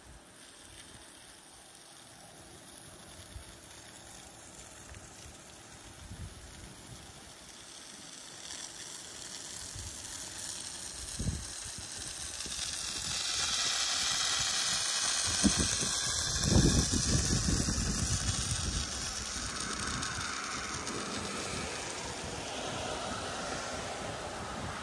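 Soft-wash spray wand with a shooter tip hissing as it sends a stream of roof-cleaning solution onto asphalt shingles, growing louder over the second half. A few low bumps come around the middle.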